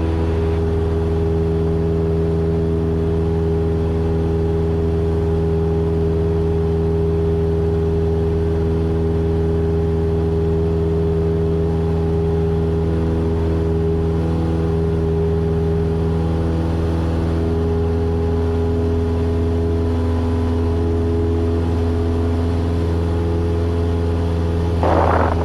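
Cessna 172's piston engine and propeller running at full climb power, a steady unbroken drone heard from inside the cabin.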